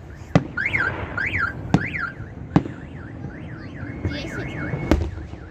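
A car alarm sounding, its siren sweeping up and down in pitch, then switching to a quicker warble and a steady held tone near the end. Four sharp firework bangs go off over it.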